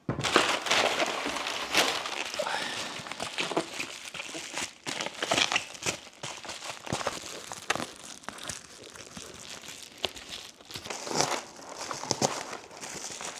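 Packaging being handled as a new hammer is unwrapped: continuous crinkling and rustling with sharp crackles and some tearing.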